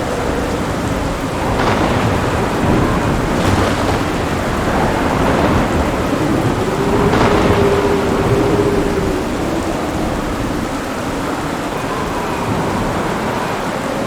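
Heavy thunderstorm: steady rain with rolling thunder and a few sharp cracks, the strongest about seven seconds in.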